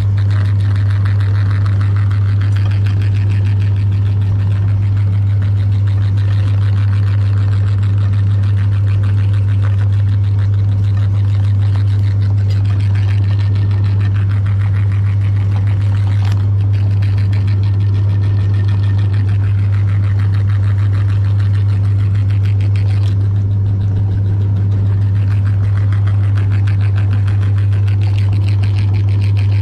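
Electric meat grinder motor running steadily, a strong even low hum with a fainter whirring noise above it.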